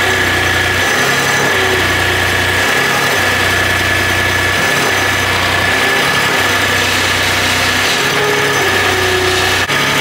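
Skid steer engine running, its low hum cutting in and out every second or so as the loader controls are worked, with a steady high whine over it. The loader arms will not lift, which the owner suspects is a valve that has let go in the hydraulic valve bank.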